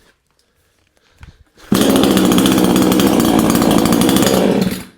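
Proyama 68cc two-stroke gas chainsaw hot-started: after a quiet second and a half the engine suddenly runs loud and steady for about three seconds, then stops abruptly.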